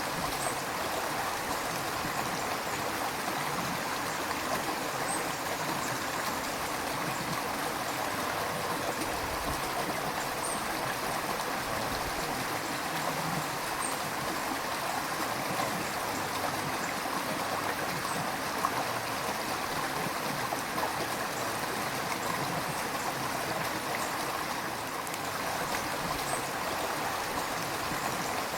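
River water flowing steadily over stones, an even rushing with some gurgling.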